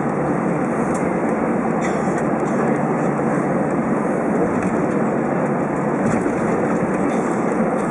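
Steady cabin noise inside an Airbus A320 moving along the ground: an even engine and airflow rumble with no rise or change.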